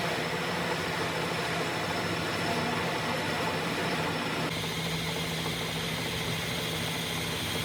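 A motor-driven machine running steadily with a low hum and hiss; its sound changes about four and a half seconds in, when a higher hiss comes in.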